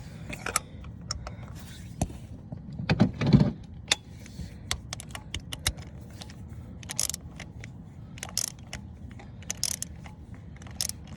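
Ratchet wrench clicking in short, irregular runs as a spark plug is run down and tightened, with a louder metallic knock about three seconds in.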